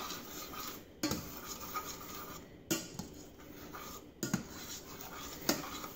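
White plastic spoon stirring a buttery sauce in a stainless steel saucepan, rubbing along the pan with a few light knocks against its side.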